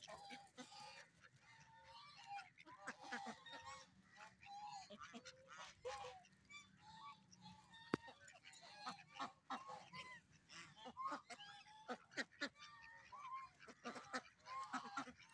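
A flock of domestic ducks and geese calling, with many short, overlapping quacks and honks. One sharp click sounds about halfway through.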